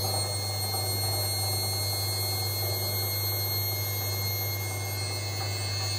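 Daewoo DWD-M1029A washing machine on its spin cycle: the drum and brushed motor run with a steady hum and a high-pitched whine. It carries an odd extra noise during spin, which the repairer traces to play at the loose drum pulley.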